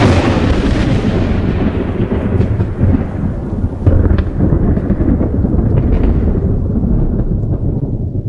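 Thunder: a sudden clap out of silence, then a long rolling rumble that slowly fades, with a few sharp cracks between about two and six seconds in.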